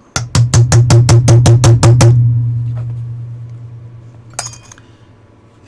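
A hammer tapping a roll pin punch rapidly, about eleven quick metal strikes at roughly five a second, driving a roll pin home into a Ruger LCP pistol slide to retain the firing pin. A low ringing hum builds under the strikes and fades slowly after they stop, and a single metallic click comes near the end.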